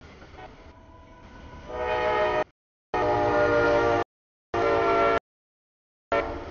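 A CSX freight locomotive's air horn sounds for a grade crossing. It gives three blasts, the second the longest, and a fourth starts near the end, over the low rumble of the approaching train.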